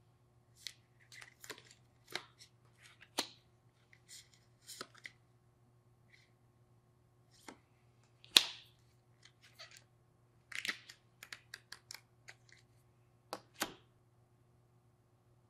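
Paper booklets and cards being handled and set down: scattered light rustles and taps, with one sharper tap about eight seconds in, over a faint steady hum.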